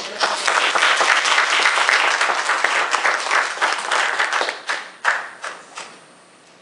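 Audience applauding a speaker's introduction, a dense clatter of clapping that thins out about five seconds in to a few last claps.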